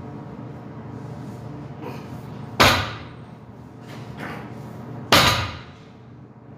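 Heavy barbell loaded to about 500 lb, set down on rubber gym floor mats between deadlift reps: two hard thuds about two and a half seconds apart, each dying away within about half a second.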